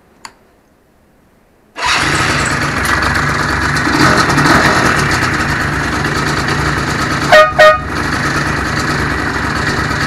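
Apache quad bike's engine starts up about two seconds in and runs at a steady idle. Near the end its air horns give two short toots in quick succession, the loudest sounds.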